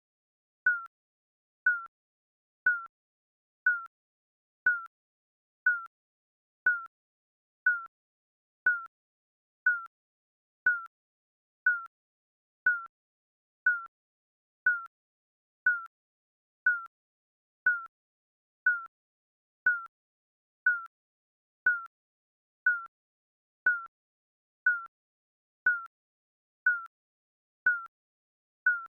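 Digital countdown timer beeping once a second. Each beep is short and electronic and dips slightly in pitch, with silence between beeps.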